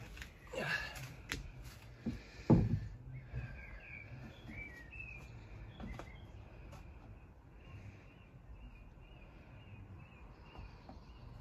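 A few knocks, with one louder low thump about two and a half seconds in, then faint outdoor background with light bird chirps.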